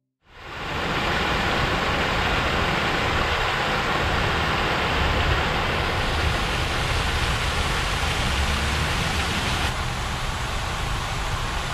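Large fountain's many water jets splashing down into the basin: a steady, even rushing hiss that fades in at the start and drops slightly in level near the end.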